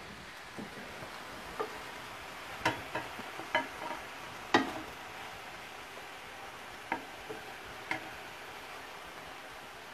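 Wooden spatula scraping and knocking in a stainless steel skillet as sautéed Brussels sprouts are scooped out onto a plate: about ten irregular clacks, loudest around two and a half and four and a half seconds in, over a faint steady sizzle from the pan.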